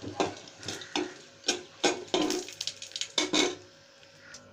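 A spoon scraping and knocking against a metal pot while stirring garlic cloves and dried red chillies frying in oil, about two strokes a second, stopping about three and a half seconds in.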